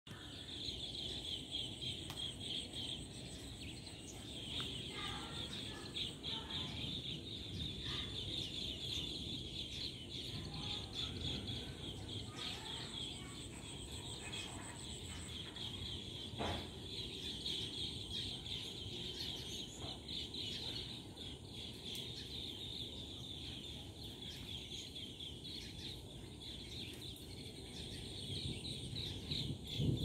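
A flock of small birds perched on an overhead cable chirping without a break, many high chirps overlapping one another.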